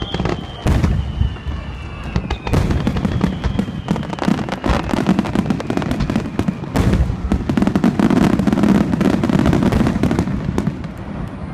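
Fireworks display: aerial shells going off with deep booms, then a dense barrage of rapid crackling reports through the second half. A faint falling whistle runs through the first few seconds.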